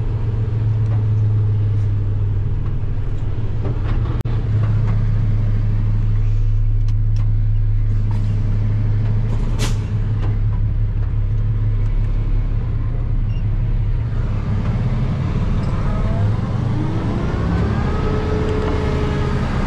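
Heavy delivery truck's engine running steadily as the truck pulls forward and straightens out. About ten seconds in there is a brief sharp sound, and near the end the engine pitch rises and then holds as the truck picks up speed.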